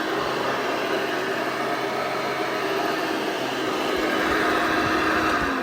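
Hoover Elite 600 upright vacuum cleaner running, a steady motor whine over rushing airflow from its 6-amp motor, which the owner calls nice and quiet. Near the end it is switched off and the whine starts to drop in pitch as the motor winds down.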